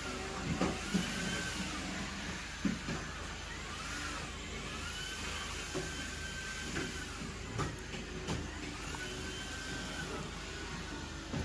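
Vacuum cleaner running, its motor whine climbing, holding and dropping back about three times, with scattered short knocks.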